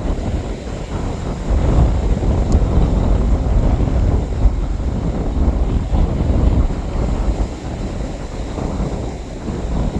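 Strong wind buffeting the microphone: a loud, gusty low rumble that rises and falls unevenly.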